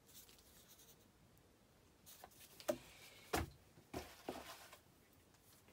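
Faint handling noise from about two seconds in: bubble wrap and cardboard rustling and a few light knocks as firework tubes are set down and lifted from a packed box, the clearest knock about three and a half seconds in.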